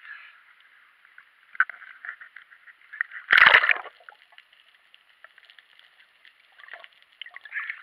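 Water lapping and sloshing at the waterline with small ticks and splashes, and one loud splash a little over three seconds in as the camera plunges below the surface.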